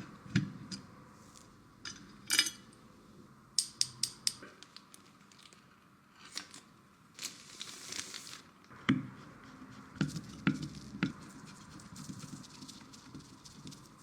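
Scattered sharp clicks and taps of hard computer parts being handled and fitted during a PC build, with a brief rustling scrape about seven seconds in.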